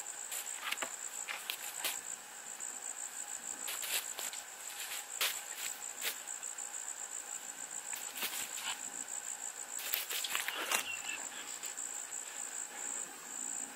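Steady, high, rapidly pulsing chirring of insects, with scattered crunches and knocks of footsteps on dry leaf litter and wooden poles being handled.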